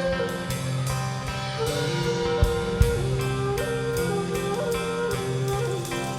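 Instrumental music with a gliding lead melody over sustained chords and a steady drum beat.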